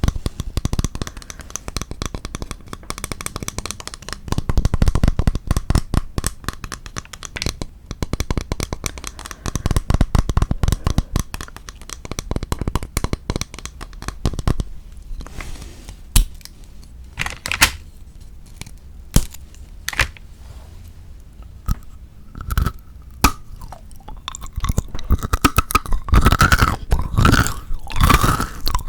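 Close-miked chewing and crunching of chocolate: dense crackly crunching for the first half, sparser single crunches and clicks through the middle, then steady crunching again near the end.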